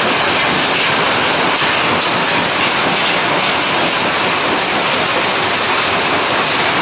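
POWERPLUS stone crushing plant running, with crushed stone pouring off the conveyor onto the stockpile: a steady, dense rushing rattle of falling gravel with small scattered clicks of stones striking.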